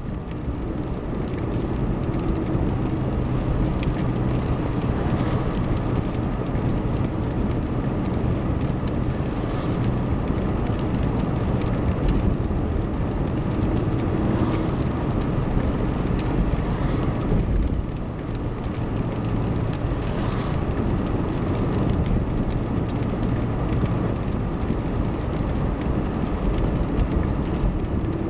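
Steady drone of a car being driven, heard from inside the cabin: engine hum and tyre noise on the road.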